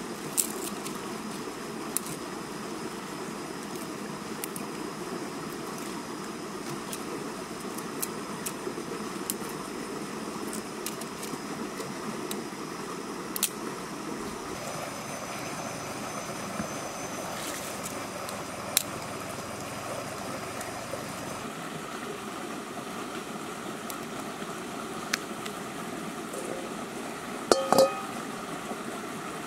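Steady rush of a flowing river over rocks, with a few scattered small clicks. Near the end, a metal wok clanks twice and rings briefly as it is set down on stones; this is the loudest sound.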